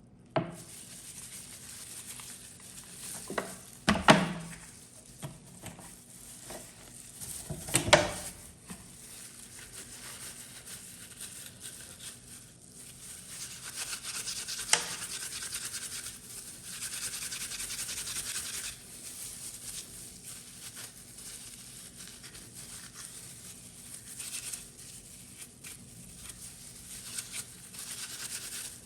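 Small brush scrubbing and rubbing over the hard parts of a rusty, muddy phone charger, with two loud sharp knocks about four and eight seconds in.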